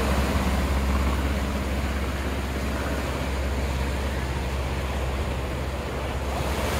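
Beach ambience: wind rumbling on the microphone over the steady wash of surf.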